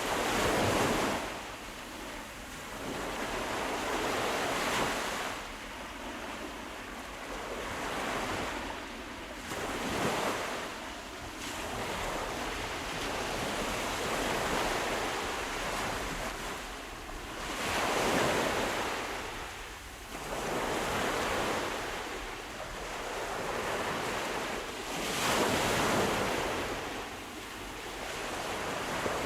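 Sea waves rolling in and washing back, a steady rush of surf that swells into a louder surge every several seconds.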